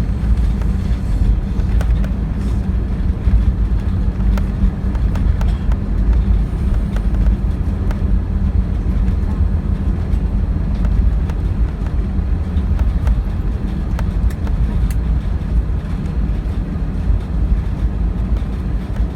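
Airbus A320 on the runway just after landing, heard from inside the cabin: a loud, steady, deep rumble from the wheels and engines, with light rattling clicks throughout.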